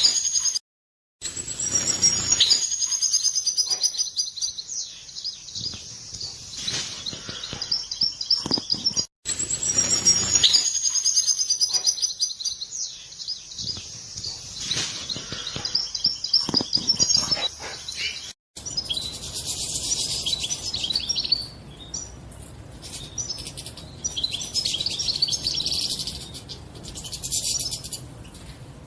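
European goldfinches calling: a fast, high, bright twittering chatter, the 'batbata' call said to put the female in mating posture. It cuts out abruptly twice, and about two thirds of the way in it switches to a different recording with more background hiss.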